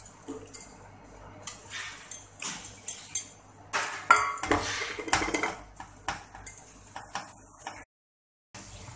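Wire balloon whisk beating egg yolks and sugar in a glass bowl, its wires clinking and scraping against the glass in irregular strokes. The sound drops out for about half a second near the end.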